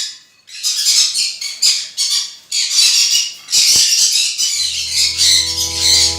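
Small conures (pineapple, yellow-sided and black-capped) squawking in repeated shrill, harsh bursts. Background music comes in about two-thirds of the way through.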